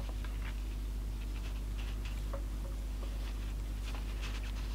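Steady low hum, with faint scattered light clicks and rustles from handling wires and a small plug while soldering.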